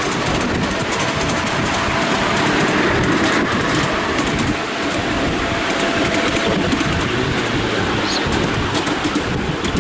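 Ride-on miniature train hauled by a miniature Class 43 HST locomotive running along the track, heard from a passenger car: a steady running rumble of the wheels on the rails, with a faint whine for much of the time.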